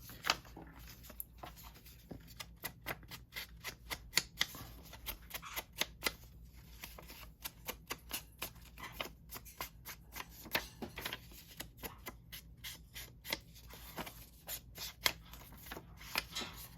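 Ink pad dabbed and rubbed along the edges of paper: many irregular light taps and brushing sounds.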